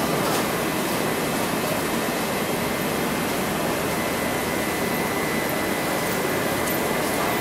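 Steady hum and hiss of a metro train standing at the platform with its doors open, its rooftop air-conditioning running, with a thin steady high whine throughout.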